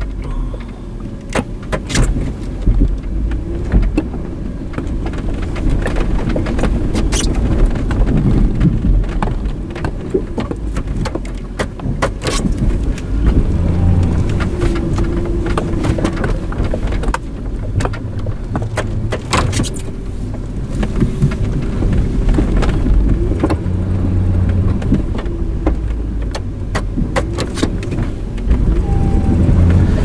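Plow truck's engine running under load, its pitch rising and falling as it pushes and backs against heavy wet snow, with scattered clicks and knocks throughout.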